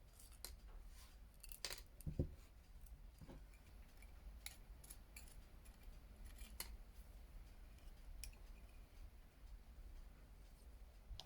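Faint, scattered small metallic clicks and scrapes of a hand tool working on an old pocket watch's case and glass, with a dull knock about two seconds in.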